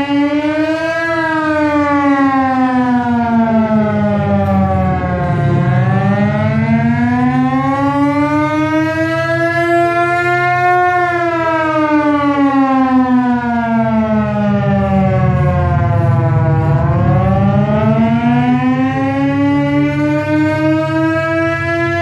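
Air raid siren wailing, its pitch rising and falling slowly in cycles of about ten seconds over a steady low hum, sounding a red alert against approaching enemy aircraft.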